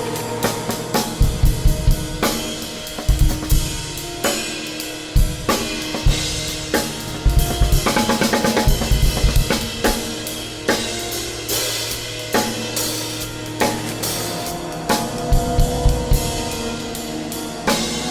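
Drum kit played freely in an irregular, busy pattern of kick drum, snare and cymbal hits, over held droning tones in a loose improvised piece.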